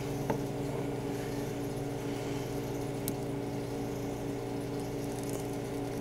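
A steady low machine hum with a fixed pitch runs throughout. Two faint clicks, one just after the start and one about three seconds in, come while a heat-shrink butt connector is being fitted onto a stripped wire.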